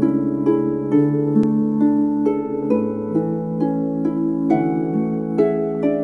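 Ancient Greek lyre music: plucked strings picking out an unhurried melody, about two notes a second, over longer-ringing low notes.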